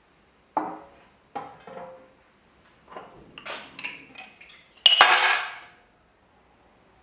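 Small metal pieces clinking and clattering against a hard surface: a few separate knocks, then a quick run of lighter clinks, and one loud ringing clank near the end.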